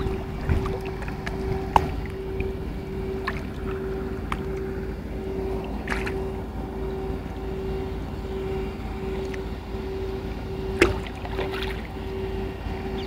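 Sounds of a small boat on open water: a steady low rumble with a hum that pulses about twice a second, and a few sharp knocks, the loudest about eleven seconds in.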